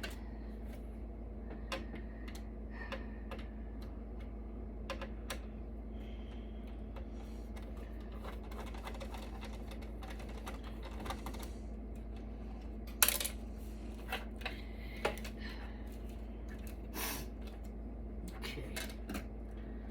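Scattered small clicks and taps of a screwdriver, screws and metal parts while screws are taken out of a server motherboard in its steel chassis, the loudest click about 13 seconds in. A steady low hum runs underneath.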